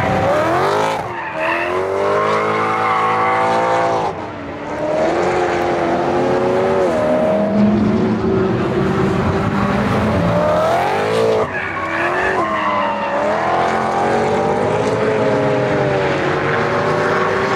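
High-performance supercar engine accelerating hard through the gears, its pitch climbing and then dropping sharply at each upshift, about a second, four seconds and eleven seconds in.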